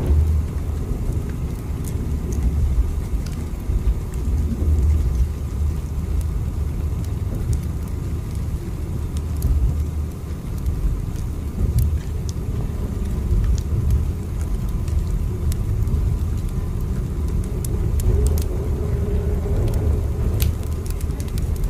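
Steady low rumble of a train running along the track, heard as the continuous noise of a moving carriage, with faint scattered clicks and rattles over it.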